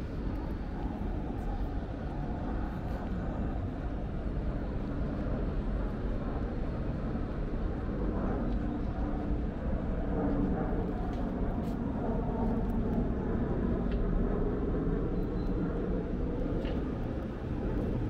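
Steady hum of distant city traffic, a low even rumble with a few faint clicks.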